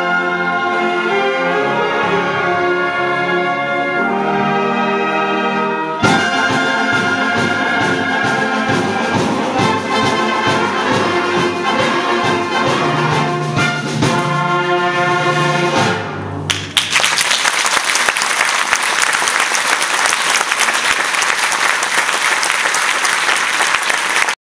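Concert wind band of brass, woodwinds and percussion playing the closing bars of a piece: held brass chords, a hard accent about six seconds in, a driving low rhythm, then a short final chord about sixteen seconds in. Audience applause follows and cuts off abruptly near the end.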